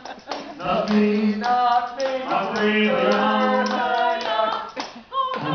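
Live singing into a stage microphone: a sung melody with several long held notes, pausing briefly near the end.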